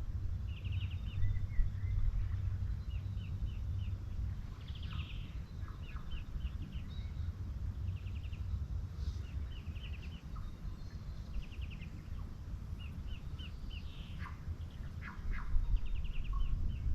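Small birds chirping in quick repeated short series throughout, over a steady low rumble.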